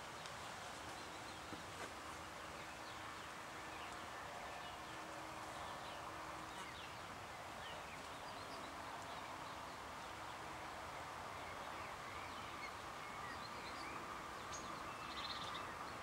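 Steady outdoor background hiss with faint, scattered chirps of small birds.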